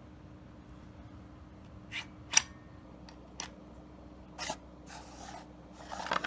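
Handling of shotgun parts: a few short, sharp clicks and brief rubbing sounds, the loudest a single sharp click about two seconds in and a small cluster near the end, over a faint steady hum.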